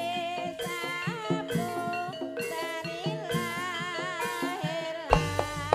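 Javanese gamelan music for jaranan: drum strokes and struck metallophone notes under a wavering melody line, with a deep gong stroke about five seconds in.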